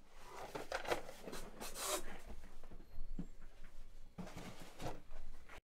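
Plastic golf discs being handled and flipped through by hand: irregular rustling with light knocks and clicks, busiest in the first two seconds, with a sharper click about halfway through.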